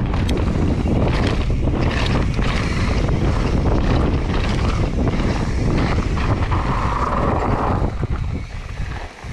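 Wind buffeting a bike-mounted camera microphone, with tyre rumble and rattling clicks as a mountain bike rolls down a dirt trail; it grows quieter about eight seconds in as the bike slows.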